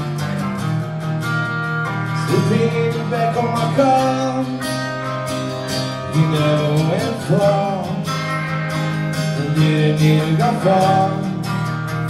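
Live acoustic and electric guitar duo playing a song: steady strummed chords, with a bending melody line coming in about two seconds in.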